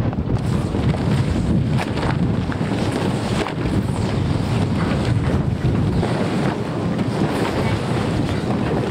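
Steady wind buffeting the microphone on the open deck of a sailing ship under way, a loud low rush with a few faint knocks.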